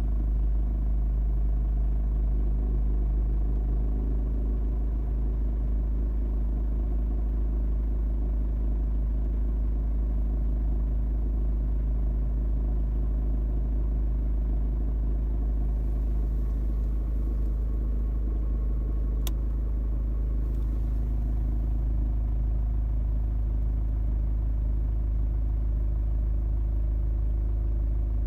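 Mercedes A 180 CDI (W169) diesel engine running steadily after a cold start, with the rattling noise that the owner puts down to the auxiliary heater (Zuheizer) working at cold start. There is one short sharp tick about two thirds of the way through.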